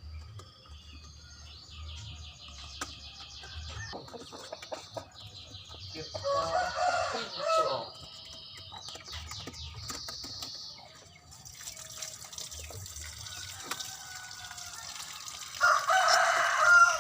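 Lovebirds chattering in rapid, high-pitched rattling trills. A rooster crows twice, about six seconds in and again near the end; the second crow is the loudest sound.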